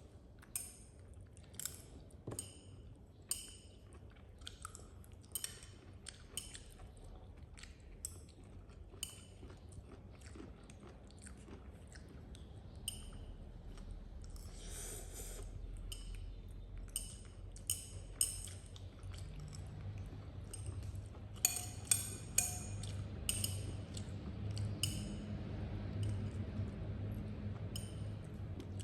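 A baby monkey chewing food with a long run of short, sharp smacking clicks that come thicker near the end. A low hum rises underneath in the second half.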